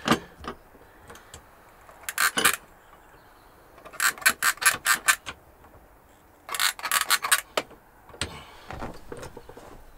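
Spark igniter of a handheld gas lighter clicking rapidly in three bursts while trying to light a gas hob burner.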